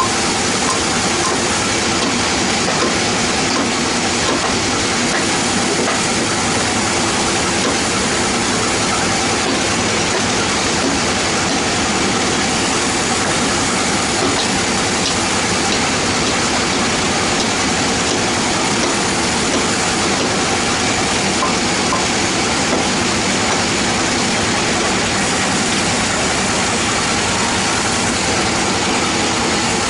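Band sawmill machinery running steadily: an even, dense drone with several steady tones.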